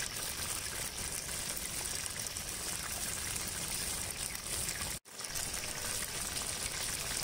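Hot oil sizzling and bubbling steadily as masala-coated fish roe deep-fries in an iron kadai. The sound cuts out for a moment about five seconds in, then carries on.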